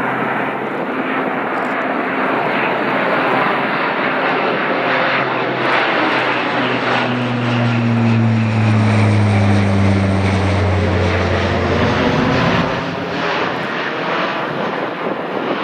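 Lockheed C-130J Super Hercules passing low overhead, the drone of its four Rolls-Royce AE 2100 turboprops and six-bladed propellers growing loudest as it passes, then falling in pitch as it moves away.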